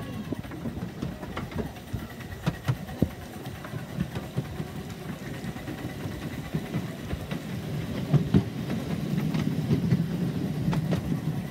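Miniature railway train running on 7¼-inch-gauge track: a steady low rumble that grows louder over the last few seconds, with scattered sharp clicks from the wheels and rail.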